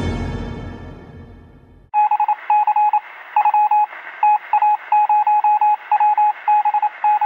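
Music fading out over the first two seconds. Then a single-pitch electronic tone beeps on and off in a mix of short and long beeps like Morse code, over a thin, hissy, radio-like background.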